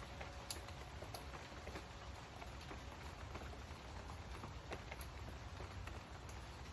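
Rain pattering, with individual drops ticking irregularly and sharply over a soft steady hiss and low rumble.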